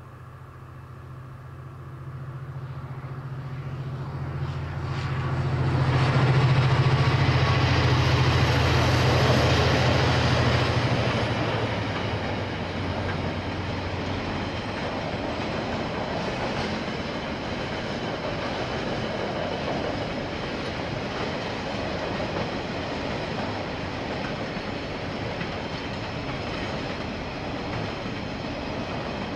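KiwiRail freight train passing: a diesel locomotive's engine comes up to its loudest about six to ten seconds in and fades past, then freight wagons roll by steadily on the rails.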